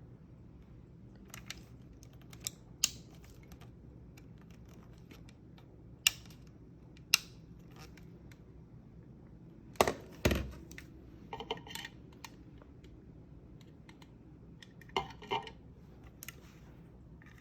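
Scattered sharp clicks and knocks of a hard plastic hair dryer being handled, a few single ones then a louder double knock about ten seconds in and a short clatter near the end. The dryer is not running.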